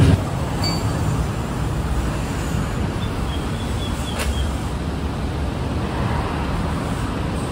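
Steady low rumble of road traffic, with a single sharp click about four seconds in.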